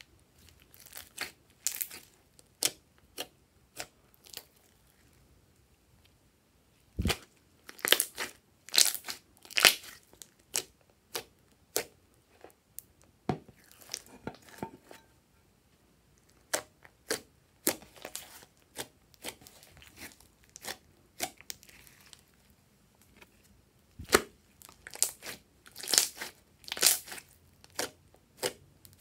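Glossy slime being stretched, folded and pressed by hand, making irregular wet clicks and pops, with two heavier thumps, about seven seconds in and again near the end.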